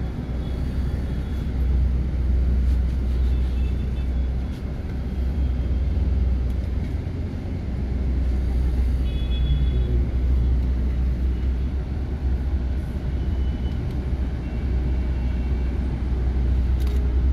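City street traffic heard from a moving vehicle: a steady low rumble of engine and road noise, with a short, high horn beep about halfway through.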